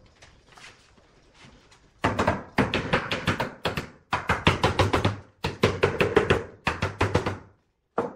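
Wooden mallet rapidly knocking on a wooden chair frame to seat its joints, in quick runs of sharp knocks starting about two seconds in, with brief pauses between runs.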